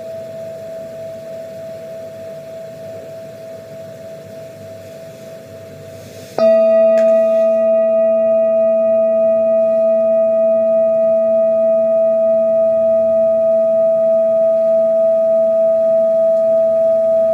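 Metal singing bowl ringing. An earlier tone fades away, then the bowl is struck about six seconds in and rings loudly with several steady tones and a slow waver, hardly dying away.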